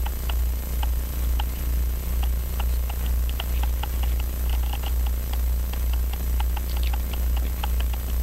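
Faint, irregular small metal clicks of a fine watchmaker's screwdriver working a screw on the brass plate of an Elgin pocket watch movement, over a steady low hum that swells and fades about twice a second.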